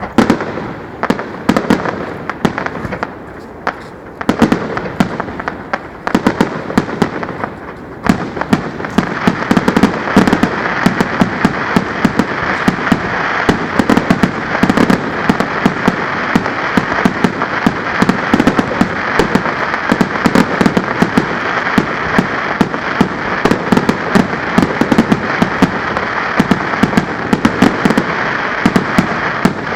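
Fireworks display heard up close: a quick series of sharp bangs, thickening about eight seconds in into a dense, continuous barrage of rapid bangs and crackle.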